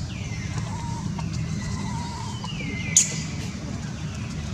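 Steady low background rumble, with a few faint high calls that fall in pitch and a sharp click about three seconds in.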